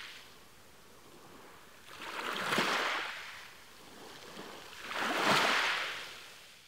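Sea waves washing, a steady rush of water that swells loudly twice, about three seconds apart, then fades away.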